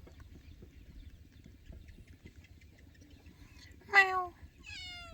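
A cat meowing twice near the end: a short, loud meow, then a longer one that falls in pitch.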